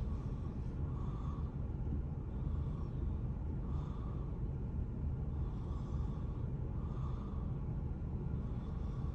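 A sleeping child snoring softly, a faint rasp coming back roughly every second or two, over a steady low rumble.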